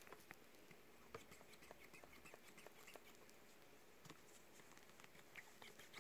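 Near silence: faint room tone with scattered tiny clicks and ticks.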